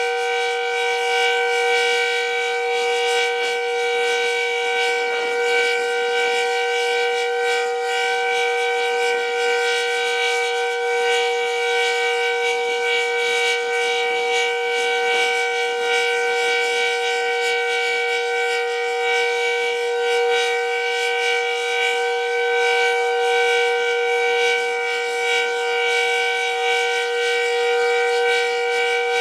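Decot Red Arrow Model 12 outdoor warning siren sounding a steady Alert tone at full speed. It holds several pitches at once with no rise or fall: the standard steady signal of a monthly siren test.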